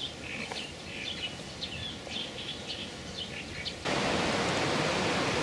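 Small birds chirping and twittering over a quiet outdoor background. About four seconds in, a louder steady hiss starts abruptly and covers them.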